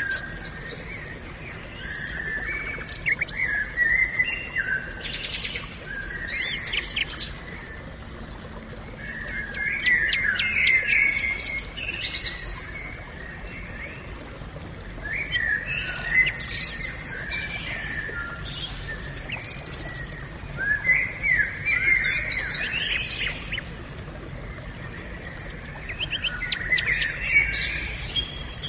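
Forest birds chirping and singing in short bursts every few seconds, over a steady low background hum.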